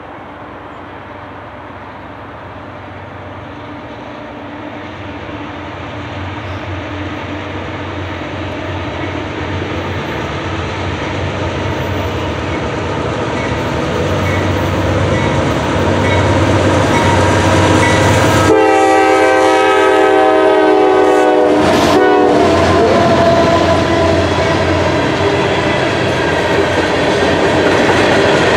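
Empty CSX coal train led by GE AC4400CW-type diesel locomotives approaching and passing, their engines droning and growing steadily louder as they near. About two-thirds of the way in, the lead locomotive sounds its multi-tone horn for about three seconds, with a brief toot right after. Then the empty open coal hoppers roll past with steady wheel-on-rail noise.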